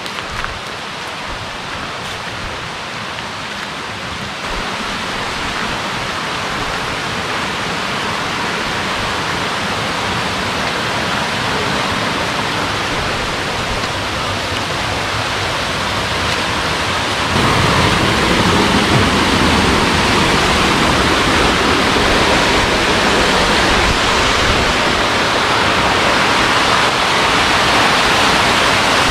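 Steady rush of flowing water from a mountain stream, growing gradually louder, with a sudden step up and a deeper rumble about seventeen seconds in.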